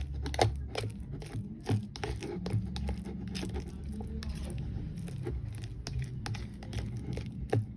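Metal fork mashing ripe banana in a bowl: irregular clicks and taps of the fork against the bowl, with scraping and crunching in between.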